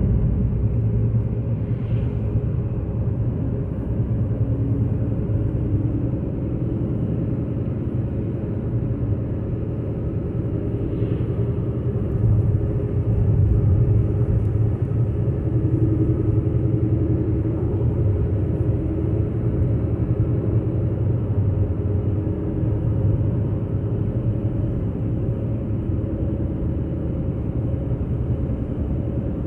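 Steady low rumble of engine and road noise inside a car cruising on a highway.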